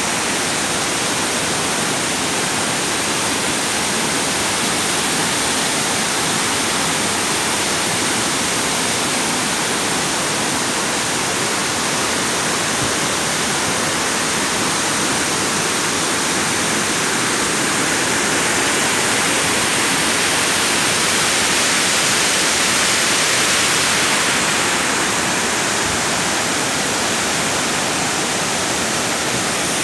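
Hulugan Falls, a tall waterfall, crashing down onto the rocks below: a loud, steady rush of falling water that swells slightly about two thirds of the way through.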